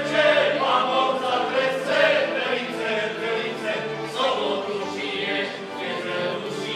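Moravian folk song sung by a group of voices in chorus, accompanied by a folk string band, recorded live in a hall.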